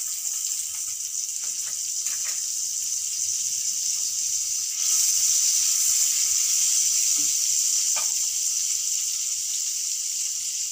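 Butter sizzling as it melts and foams in a hot non-stick frying pan, a steady hiss that gets louder about halfway through.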